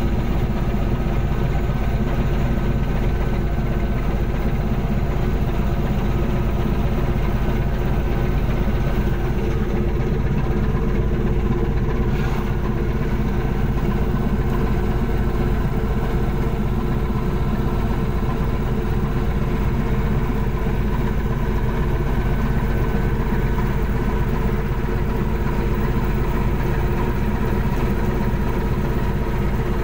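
Steady machinery drone of a longline fishing boat's engine and line hauler running, with several steady hum tones over a fast low throb.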